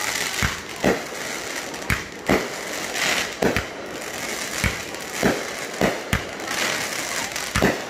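Aerial fireworks launching and bursting: a string of sharp bangs at uneven intervals, one or two a second, over a steady hiss.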